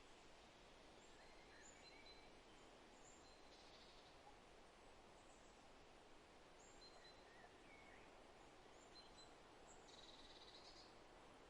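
Faint steady breeze through forest trees, with scattered short bird chirps and two brief buzzy trills, one a few seconds in and one near the end.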